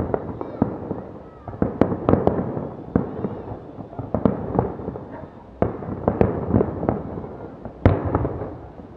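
Fireworks salute: a dense, irregular string of sharp bangs and cracks, several a second, the loudest about two seconds in and near the end.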